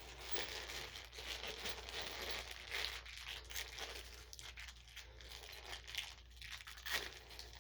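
Rummaging through a bag of spare hardware for lag screws: steady rustling and crinkling, with a few sharp clicks near the end.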